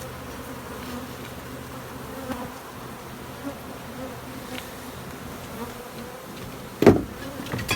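Africanized honey bees buzzing steadily in a swarm around an opened hive. A single loud knock near the end.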